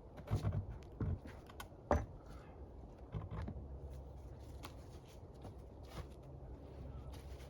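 Scattered light knocks and clicks of work being handled, the loudest about two seconds in, over a low steady rumble.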